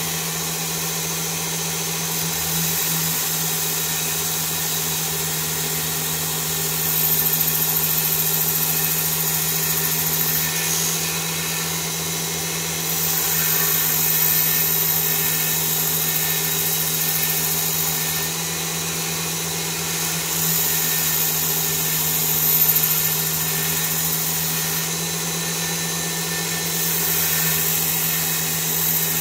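Work Sharp Ken Onion belt sharpener with the blade grinding attachment running steadily with a low motor hum, its ultrafine strop belt in use. The sound swells with a higher hiss in four stretches of a few seconds each as the blade is drawn along the belt.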